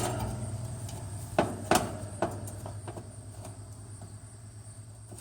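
Air conditioner unit's steady motor hum dying away after a sharp click at the start, like a motor coasting down once power is cut. A few light metallic clicks and knocks follow about one and a half to two seconds in.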